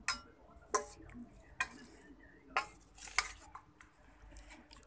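A serving spoon clinking and scraping against a plate, about five sharp knocks spread over a few seconds, as egg curry is served onto rice.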